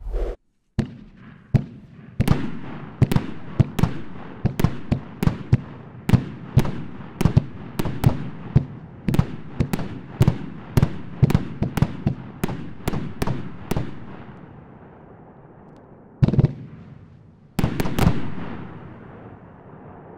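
A 25-shot 500 g consumer fireworks cake firing: a rapid string of sharp bangs, about two a second, with glittery crackle between them. After a lull comes one more bang, then a quick cluster of three, and the crackle fades away.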